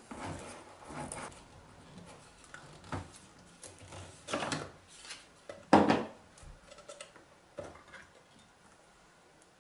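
Handheld can opener clamped onto a metal tin can and turned around the rim, making irregular metal clicks and clanks as it cuts the lid, with one louder clank about six seconds in.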